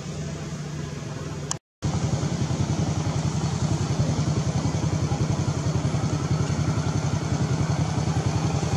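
A small engine running steadily with a fast, even pulse. It breaks off in a brief gap of silence about two seconds in, then comes back louder.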